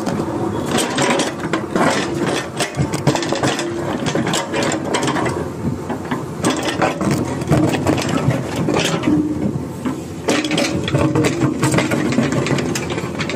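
Excavator bucket scraping and crunching through stony earth, with many sharp knocks and clatters of rock against steel, over the steady running of the excavator's engine.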